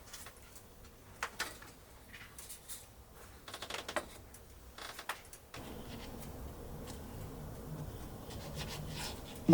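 Light scratching and rubbing with scattered small clicks and ticks, like close-up handling of small objects. About halfway through it gives way to a steady low background hum.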